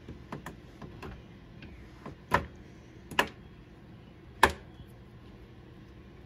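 Knife chopping 100% chocolate into small pieces: a run of irregular sharp knocks, with three louder strokes in the middle.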